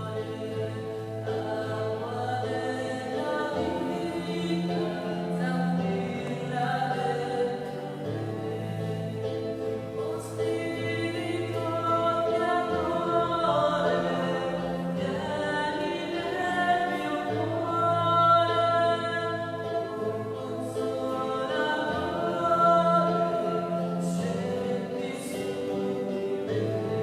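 Slow choral music: a choir singing long held chords over sustained low notes, the harmony changing every few seconds.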